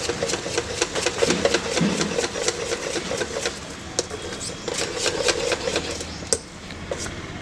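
Wire whisk beating thick dhokla batter in a stainless steel bowl: quick, rhythmic clicks of the wires against the bowl, about five a second.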